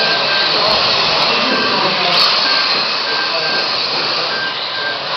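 Radio-controlled Mini cars racing: a steady whirring rush of motors and tyres, with short high beeps about every half second.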